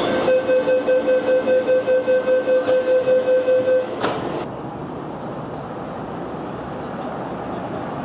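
Rapid electronic warning beeps from a train, about four a second for roughly three and a half seconds, stopping with a sudden cut. After that comes the steady rumble of trains at a station platform.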